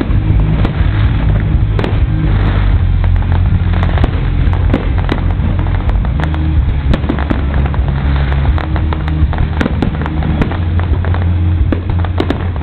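Aerial fireworks display: a continuous run of booming bursts and sharp crackles. Steady low-pitched tones sound underneath, shifting in pitch every second or two.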